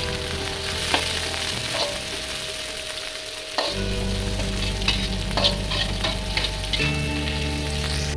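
Chilies, shallots and onion stir-frying in hot oil in a pan, sizzling steadily, with the spatula clicking and scraping against the pan every second or so.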